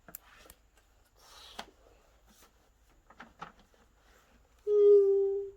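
Light clicks and rustles of plastic toys being handled, then, near the end, a loud steady tone held at one pitch for about a second that stops abruptly.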